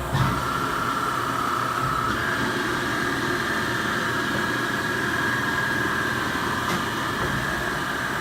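Haas VF-4 vertical machining center running its program: steady machine noise with a whine that steps up in pitch about two seconds in, as from a spindle speed change, after a short knock at the start.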